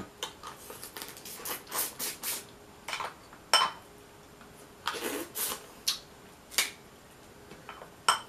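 Hands picking through boiled Dungeness crab shells on a plate: scattered sharp clicks, cracks and rustles with pauses between them, the loudest crack about three and a half seconds in.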